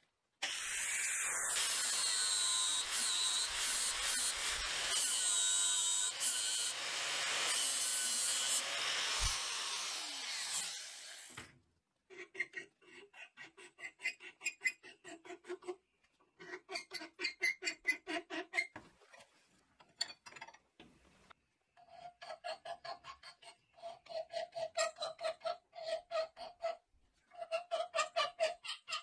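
Angle grinder grinding the edge of a steel flat bar clamped in a vise, running for about eleven seconds and then stopping. A steel hand file then works the bar's edge in rhythmic strokes, in runs of a few seconds with brief pauses, and the clamped bar rings with a tone under the strokes.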